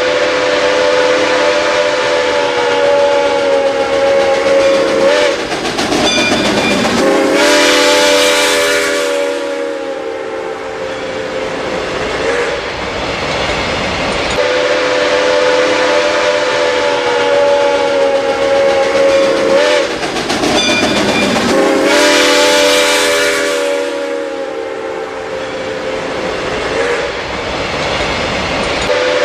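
Steam locomotive whistle sounding long, steady chime blasts with short breaks, over the rush of steam and the rumble of the moving train. The same run of blasts and steam bursts plays twice in a row.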